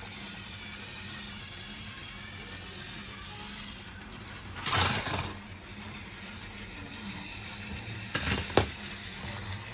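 Battery-powered Thomas & Friends toy train running, its small motor and gears whirring steadily. A short noisy rustle comes about five seconds in, and two sharp knocks about half a second apart come near the end.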